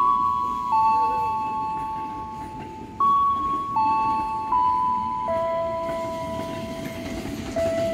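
Station public-address chime playing a slow melody of bell-like notes, each struck and then fading, two often sounding together, over low rumbling background noise.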